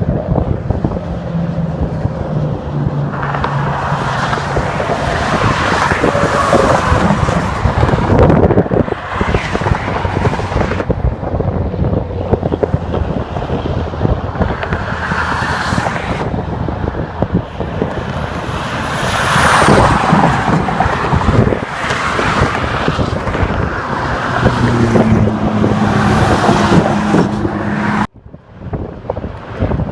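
Freeway traffic: cars and trucks passing one after another, each swelling up and fading, over a constant road roar with a low engine drone at times. The sound cuts off suddenly near the end.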